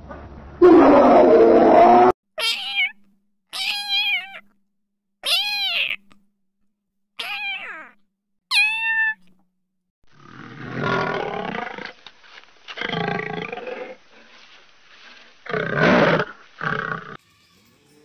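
A loud growl, then five short high-pitched calls that rise and fall, then a male lion's roaring calls, four in a row.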